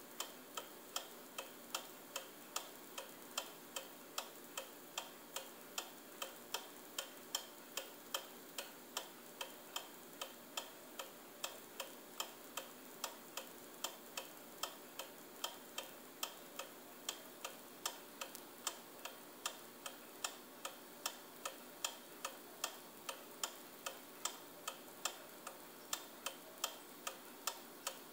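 A New Haven pendulum clock's brass movement ticking steadily at the escapement: a brisk, even tick-tock of a few beats a second.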